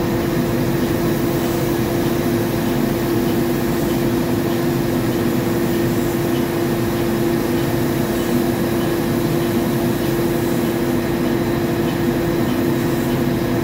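Sandingmaster SA-3200-1350 wide-belt sander running: a steady machine hum with a constant low tone, unchanged throughout.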